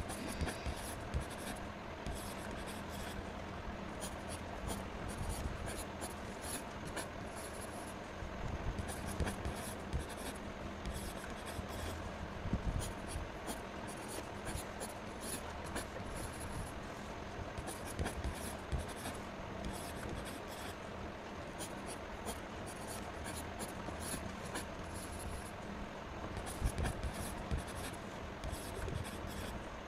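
A black pen drawing quick straight lines along a plastic ruler on paper: a steady run of short scratching strokes, with occasional low thumps.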